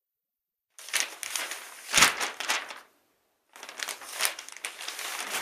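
Newspaper pages rustling and crinkling as they are turned and folded, in two spells: the first with a sharper crackle about two seconds in, the second starting about half a second after it ends.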